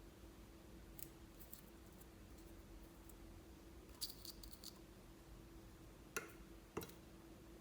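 Near silence with a faint steady hum, broken by a few soft high clicks, a quick run of small clicks about four seconds in, and two sharper taps near the end.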